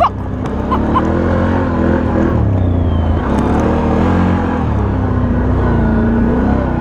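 Can-Am Outlander 1000 XT-P ATV's V-twin engine running under way, its pitch sagging and climbing again a couple of times as the throttle is eased and opened.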